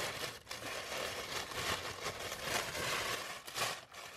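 White tissue paper in a gift bag rustling and crinkling as hands rummage through it, in a run of irregular rustles.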